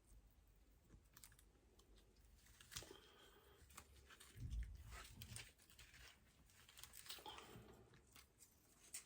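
Faint, scattered small clicks and taps of hand tools and parts being handled on an iPhone during a front-glass repair, with a dull bump about halfway through.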